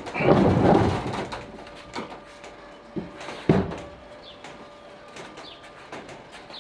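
Mechanical handling noise at a small outboard motor clamped on a wooden boat's transom: a rattling burst of about a second near the start, then a few separate knocks. The motor does not start running. Faint bird chirps in the background.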